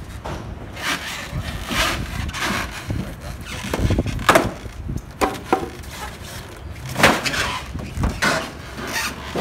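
Polystyrene foam packing blocks being worked loose and pulled from around a motorcycle on its shipping crate base, giving irregular squeaks, scrapes and knocks.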